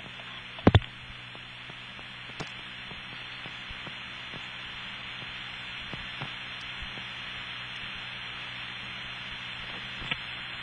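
Steady hiss of an open telephone line with a faint hum. A sharp double click comes about a second in, with a few fainter clicks later. The line is held open while the TSPS operator waits for a number that is never given.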